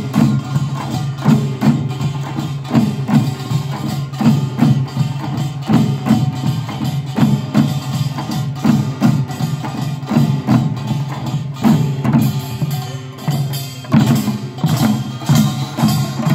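Korean pungmul percussion band playing: buk barrel drums and sogo hand drums beating a steady rhythm, with metal gongs ringing underneath.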